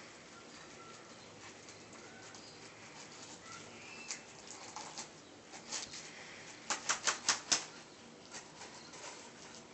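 Ragdoll kittens' paws and claws scratching and patting on a slippery quilted cover as they play, in scattered short scrapes, with a quick run of about six sharp scratchy ticks about seven seconds in, the loudest part.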